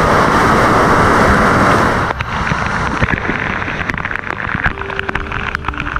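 Waterfall water pouring onto and around the camera, a loud steady rush; about two seconds in it drops and turns into a patter of drops striking close to the microphone.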